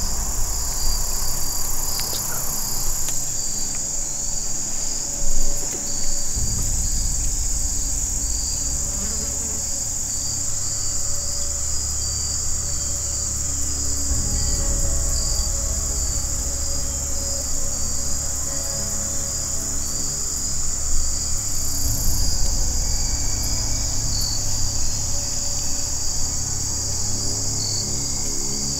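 Steady, high-pitched chorus of insects in summer woods: a continuous buzz with a rapid pulsing trill just beneath it.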